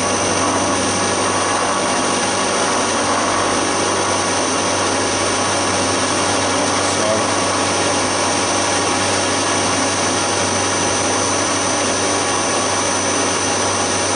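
Milling machine spindle driving an end mill through a steel block: a steady cutting noise with a constant low hum and a high-pitched whine.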